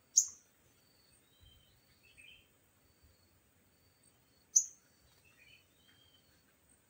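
Small birds calling: two loud, sharp calls that sweep quickly down in pitch, about four seconds apart, with softer chirps between them and a faint high steady whine behind.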